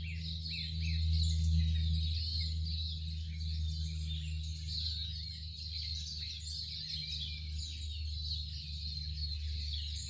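A chorus of several birds singing and chirping at once, with short overlapping chirps and trills throughout. Under it runs a steady low hum.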